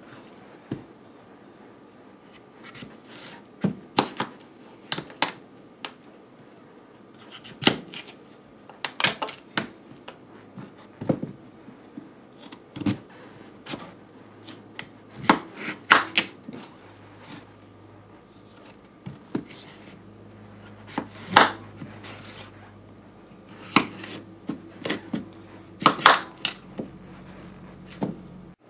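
Kitchen knife chopping raw sweet potatoes into large chunks: irregular sharp knocks as the blade cuts through and strikes the cutting surface, sometimes several in quick succession.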